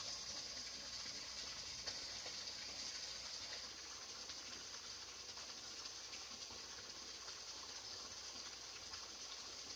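Steady hiss of splashing, aerated water in a koi pond, a little quieter from about four seconds in.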